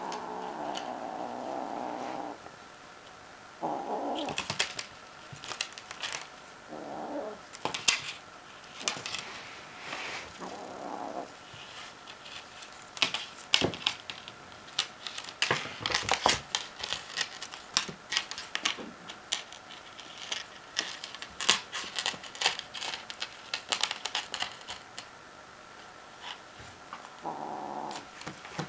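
A Bengal kitten's low, drawn-out vocal sounds, coming in several one- to two-second stretches at the start, a few times in between and again near the end. Between them come many quick clicks and taps from claws and a small toy on a wooden floor.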